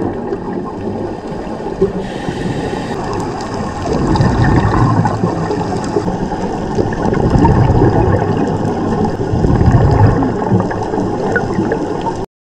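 Scuba divers' exhaled air bubbles heard underwater: a muffled bubbling and rushing noise that swells in surges, louder from about four seconds in, and cuts off suddenly near the end.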